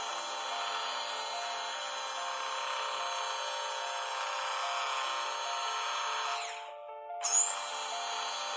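Powered dental instrument running with a steady hiss and a high whine, stopping about six and a half seconds in and starting up again a moment later, over background music.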